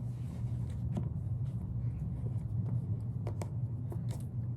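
Scattered light clicks and taps from small plastic toy figures being handled and set down, over a steady low hum.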